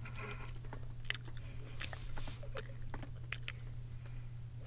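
Close-miked ASMR mouth sounds: soft irregular clicks and crunchy chewing noises, with a few sharper clicks roughly a second apart. A steady low hum sits underneath.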